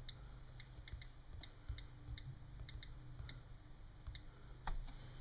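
iPad on-screen keyboard clicking as a name is typed: about a dozen short, faint, high ticks at an uneven typing pace, with one louder tap near the end.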